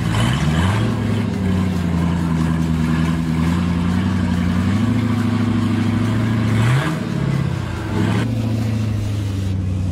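The Jeep CJ's LS LQ9 6.0-litre V8 works under load as the 49-inch-tyred crawler climbs a rock face. The engine holds a steady mid rev, its pitch dipping and rising sharply near the start and again about seven and eight seconds in.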